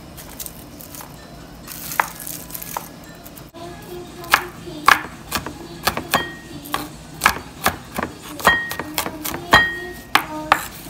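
Kitchen knife mincing crushed garlic cloves on a wooden cutting board: a few scattered knocks, then from about four seconds in an uneven run of chops several a second, the blade knocking on the wood.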